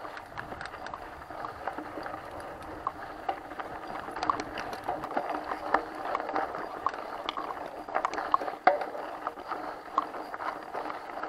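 Mountain bike rolling along a dirt and gravel road: a steady crunch of tyres on the surface, with frequent clicks and rattles from the bike.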